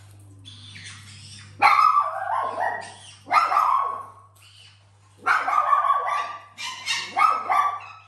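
Fennec fox giving loud, harsh bark-like cries in four bursts, typical food-guarding calls over its bowl.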